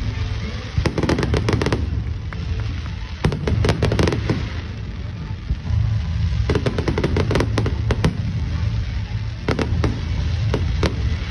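Fireworks going off: rapid clusters of sharp bangs and crackles, coming in four volleys a couple of seconds apart.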